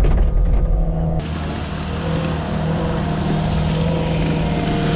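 Skid steer's diesel engine running steadily. About a second in the sound changes abruptly to the same kind of engine drone with a hiss over it.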